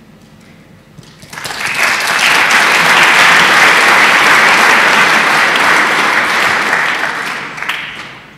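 Audience applauding. The clapping starts about a second in, swells to a steady peak and dies away near the end.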